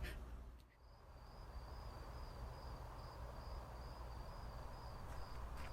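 A cricket chirping steadily, about three or four chirps a second, over a faint background hiss.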